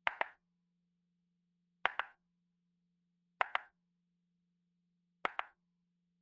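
Pairs of short, sharp clicks, the two in each pair a split second apart, repeating four times about every 1.7 seconds over a faint steady low hum.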